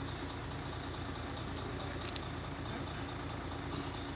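A vehicle engine idling steadily with a low rumble, with a couple of light clicks about two seconds in.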